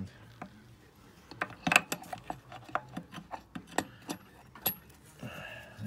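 Metal parts of a GY6 scooter gearbox clicking and clinking as they are worked by hand onto their shaft: a scatter of sharp light ticks and knocks, loudest about two seconds in.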